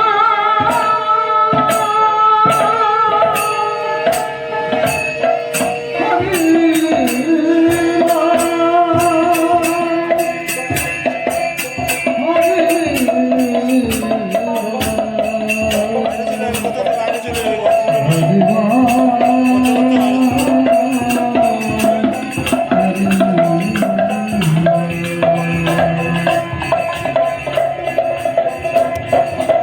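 Hindu devotional music over a PA system: a held, wavering melody line that steps from note to note, over a steady rhythm of drums and jingling percussion.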